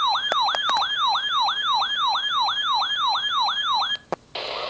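Electronic siren tone wailing in fast repeated sweeps, about three a second, each dropping quickly in pitch, then cutting off suddenly about four seconds in. A click follows, then a steady hiss near the end.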